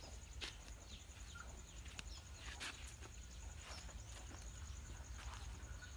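Outdoor ambience: a steady, high, pulsing insect trill over a low rumble, with a few short, scattered rustling sounds.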